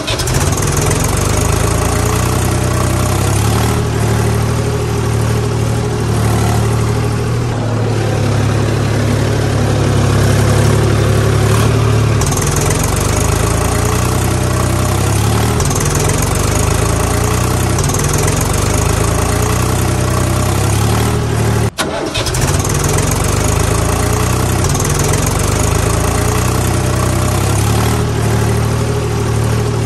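Tractor engine running steadily, with a brief break about 22 seconds in.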